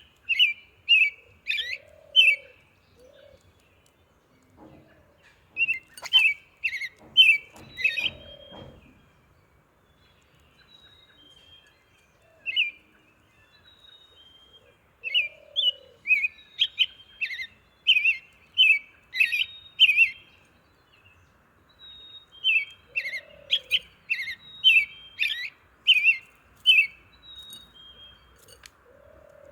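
Birds chirping: quick runs of short, high chirps in bursts with pauses between, and a lower, softer call now and then.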